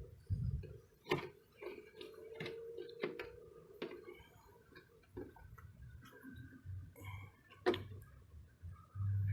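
Irregular small clicks and knocks of hand work on a pickup's rear door latch and cable, with a faint low hum underneath.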